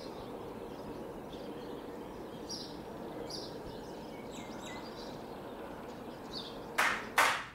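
Steady outdoor ambience with small birds chirping now and then. Near the end come two short, loud scratchy strokes of chalk on a blackboard.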